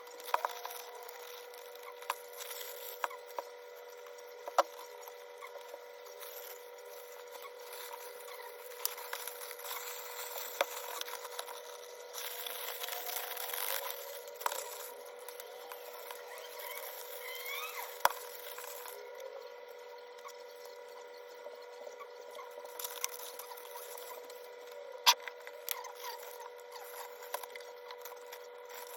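Hands-on kitchen food preparation: scattered sharp taps and knocks with rubbing noises, as of utensils and food being handled on a board, over a steady hum.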